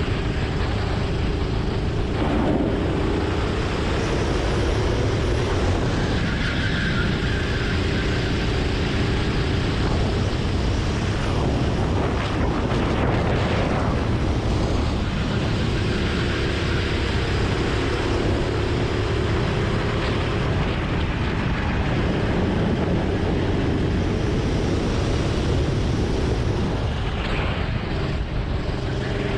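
Sodi RT8 kart's engine under way, its revs rising on the straights and dropping into the corners again and again, over steady wind and road rumble.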